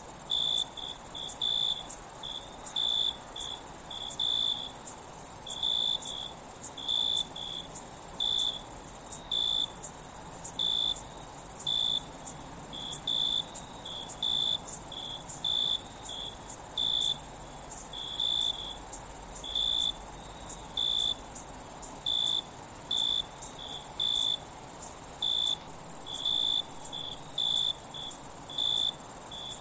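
Crickets at night: a continuous high-pitched insect trill, with a cricket chirping repeatedly at a lower pitch, about one to two short chirps a second, unevenly spaced.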